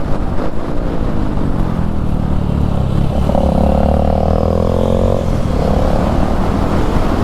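Motorcycle engine running under way, with a steady higher whine that comes in for a couple of seconds around the middle.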